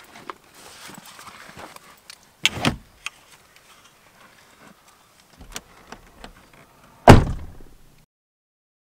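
Pickup truck door slammed shut about seven seconds in, the loudest sound, dying away quickly. Before it, a couple of knocks and rustling as gear is pulled out of the cab about two and a half seconds in.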